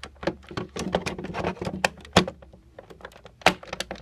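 Hard plastic clicking and knocking as a plastic action figure is worked onto a toy playset's plug-in spot, with a few sharper clacks, the loudest about two seconds in and again near the end.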